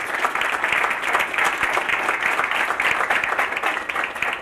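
Audience applauding: dense clapping from many hands, which thins out near the end.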